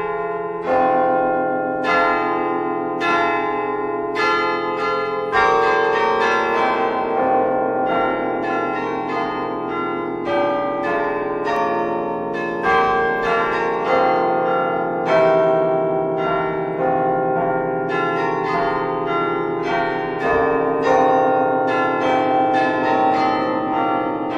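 Several bells of different pitches struck one after another, about one to two strikes a second, each note ringing on under the next.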